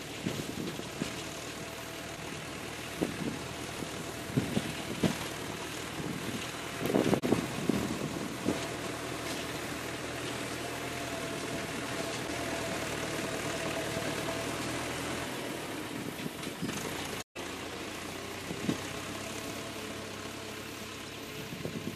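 Massey Ferguson 275 tractor's four-cylinder diesel engine running steadily as it works, its note a little louder near the middle. Wind buffets the microphone in the first half.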